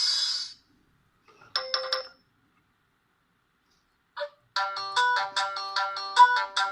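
Polyphonic ringtones played by a Pirelli DP-L10 mobile phone's Winbond W56940 40-voice sound chip. One tune stops about half a second in, a brief snatch of notes follows, and after a pause of a couple of seconds a new ringtone starts with a quick run of repeated notes.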